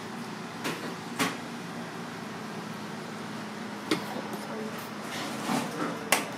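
Steady hum of a fan or ventilation unit, with a few scattered light clicks and knocks.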